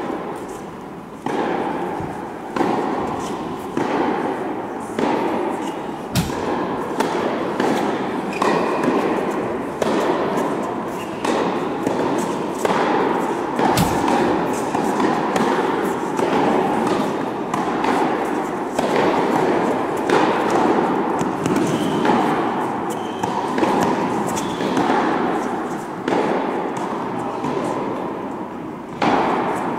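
Tennis balls being struck and bouncing, a thud about every second, each echoing in a large indoor tennis hall over a steady hall din. Two sharper cracks stand out, about six and fourteen seconds in.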